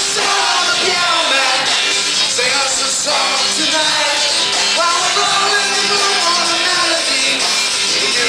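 Celtic rock band playing loud live music, a dense mix of sustained instrument notes that runs without a break.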